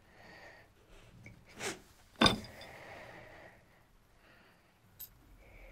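Quiet handling sounds as a small metal disc is picked up off the floor: two light knocks about two seconds in, the second with a faint metallic ring, then soft rustling and a small click near the end.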